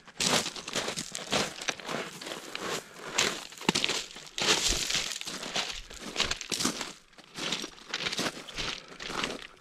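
Footsteps over loose stones on a lake shore: an uneven run of short crunching steps, about one to two a second.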